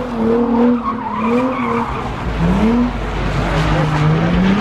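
Car engine revving hard at a burnout, its pitch repeatedly rising and falling, with tyres squealing and skidding. A heavier low rumble comes in a little past halfway.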